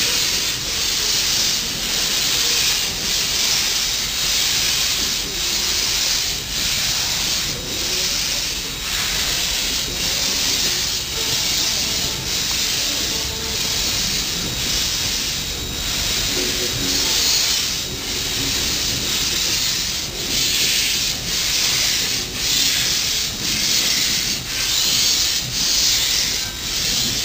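Steam locomotive Southern Railway 630, a 2-8-0 Consolidation, working with its cylinder cocks open. Loud hissing steam surges in regular rhythmic blasts, a little more than one a second.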